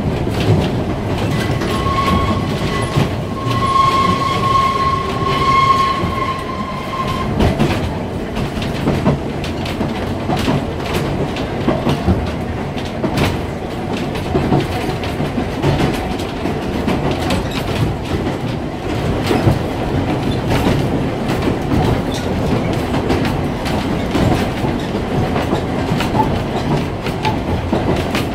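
Manx Electric Railway tram 20 running along the line, heard from inside its wooden saloon: a steady rumble with wheels clicking over the rail joints. A steady high squeal with overtones starts about a second in and stops about seven seconds in.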